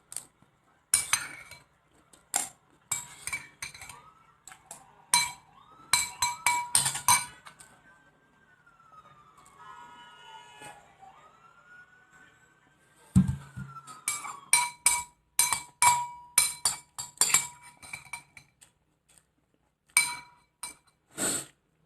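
A metal spoon clinking against a ceramic cereal bowl, many quick strikes that ring briefly, in clusters with a pause of a few seconds in the middle: scraping up the last of the cereal and milk.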